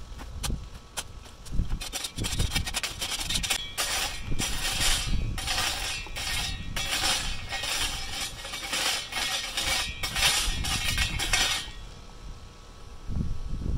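Steel shovel scraping and raking lava rock and dirt across a hardware-cloth sifting screen, the rocks clattering and grinding against the wire mesh in repeated strokes. The scraping stops about twelve seconds in.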